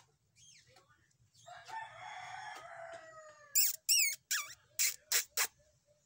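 A rooster crows, a long call falling in pitch, about a second and a half in. Then small caged parrots give a quick run of about six loud, shrill, warbling calls.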